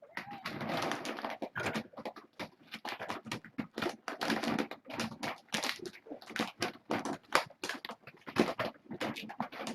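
Kittens moving about, with quick, irregular scratching, pattering and scuffling noises.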